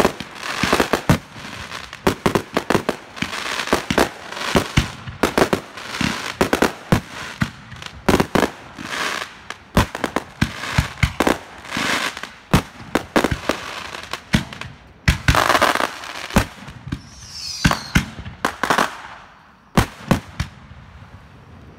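Consumer aerial fireworks firing in a rapid barrage: launch thumps and shell bursts several times a second over continuous crackling. A brief falling whistle comes near the end as the volley thins out.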